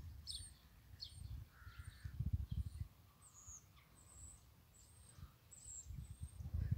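Small birds calling with short, high chirps, about a dozen scattered through. Irregular low rumbles of wind or handling noise on the microphone, louder around the middle and near the end.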